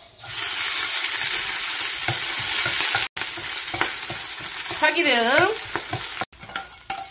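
Chopped green onions sizzling loudly in hot oil in a frying pan as they are stirred with a wooden spatula, to make scallion oil. The sizzle cuts out abruptly about three seconds in, resumes, and drops to quieter stirring knocks near the end.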